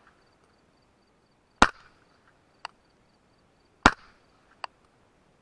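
Two suppressed rifle shots about two seconds apart, fired through an AB Suppressors Raptor that is direct-threaded without its reflex sleeve. Each shot is followed about a second later by a fainter sharp click.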